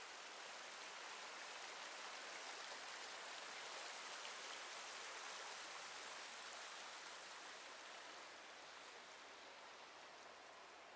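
Faint, steady rush of a shallow river running over rocks and small rapids. It grows a little louder in the middle and fades away near the end.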